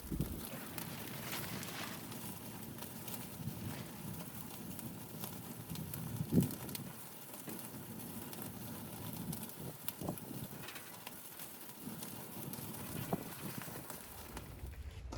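Wood fire crackling and snapping steadily, with one louder knock about six seconds in.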